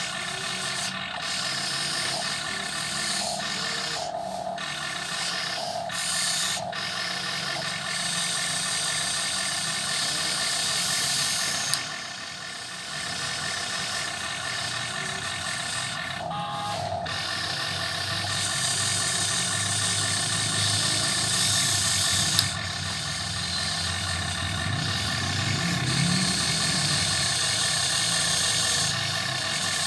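RC model excavator's small electric motors and gearboxes whirring as it is worked. The whir changes in strength with several short breaks as movements start and stop.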